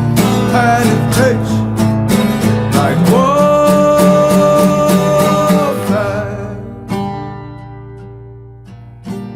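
A recorded song with guitar. A melody line holds one long note in the middle, then the music thins out and gets quieter toward the end.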